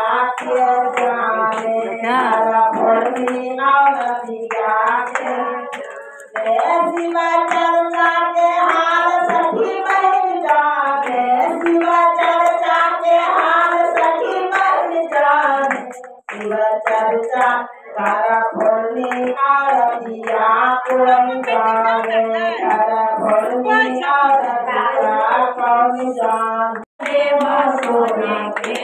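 A group of women singing a Hindu devotional bhajan to Shiva together, one voice leading into a microphone, with hand clapping along. The singing breaks briefly twice between lines.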